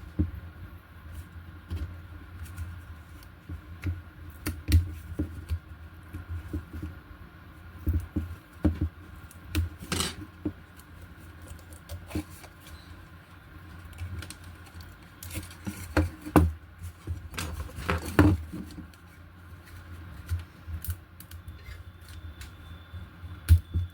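Irregular clicks, taps and light knocks of small parts and tools being handled on a workbench, over a steady low hum.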